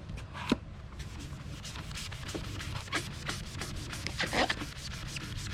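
Wet boat scuff eraser pad being scrubbed back and forth over a boat's rubber-and-plastic rub rail, a rapid run of rubbing strokes, with a steady low hum underneath.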